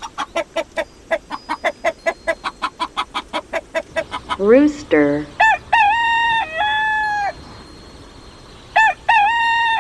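A chicken clucking in a fast, even run of about seven clucks a second for some four seconds. Then a rooster crows a long cock-a-doodle-doo, and starts a second crow about three seconds later.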